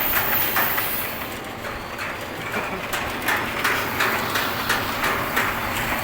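Wood pellet mill running, a steady mechanical noise with frequent irregular clicks and rattles.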